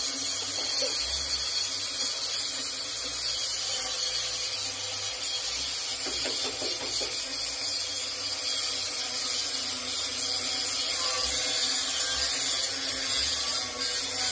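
Stick arc welding on the steel excavator bucket: a steady, high hiss from the arc with no breaks.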